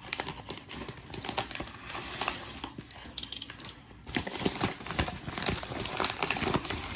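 A mailed package being pulled open by hand, its packaging crinkling and rustling with irregular crackles and small tearing sounds.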